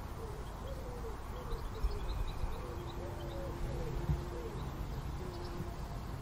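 Faint low calls of a bird: a run of short notes that each rise and fall, one longer held note in the middle, with a few faint high chirps above, over a low rumble.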